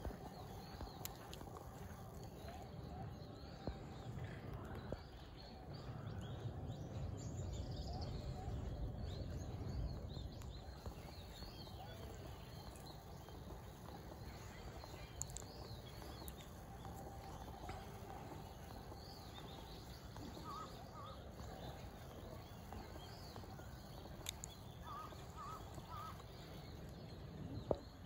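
Faint outdoor ambience: a low rumble that swells for a few seconds, with scattered faint bird chirps and a few short high notes later on.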